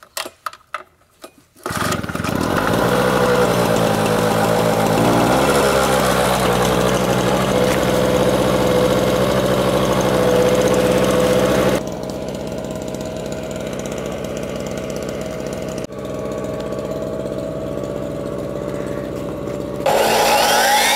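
Small portable generator pull-started: a few short sharp pulls, then the engine catches and runs steadily, going noticeably quieter about 12 seconds in. Near the end a Ryobi miter saw's electric motor spins up with a rising whine.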